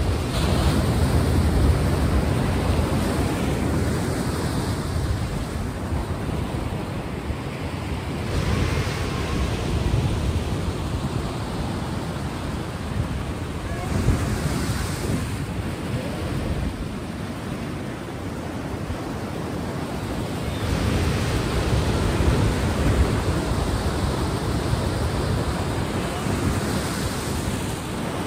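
Ocean surf: a steady wash of waves breaking, swelling and easing every five to seven seconds.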